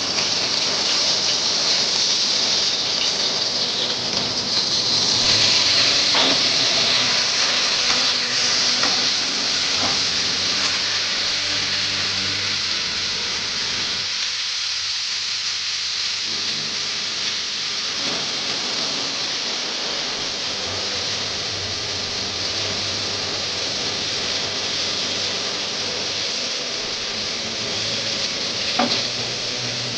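A steady hiss from food cooking on the stove. It starts suddenly and is loudest over the first few seconds, then settles, with a few light clicks or knocks.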